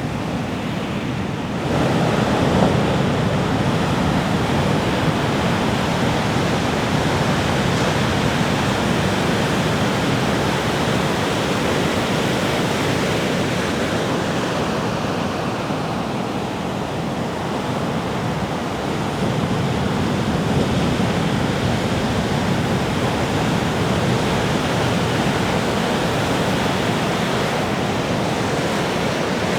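Sea waves breaking and washing on a beach in a continuous surf. It swells up about two seconds in, eases a little midway and builds again.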